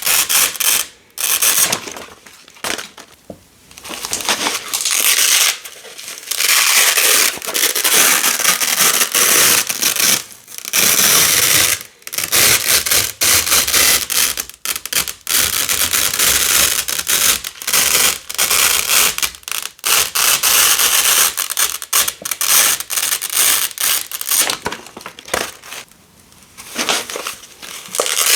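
Velcro hook-and-loop tape being pulled apart, black hook strip ripping off coloured loop tape with a crunchy, crackling sound, over and over with short pauses between pulls.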